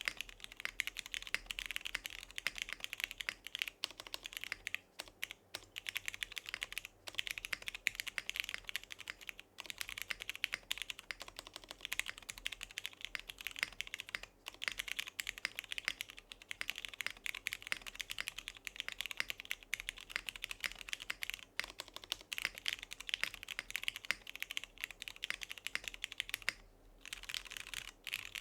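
Continuous fast typing on a Monokei x TGR Tomo mechanical keyboard with lubed and filmed Cherry MX Ultraglide Black linear switches in an aluminium plate, under PBT keycaps: a steady stream of keystrokes, with a few brief pauses and a short break near the end.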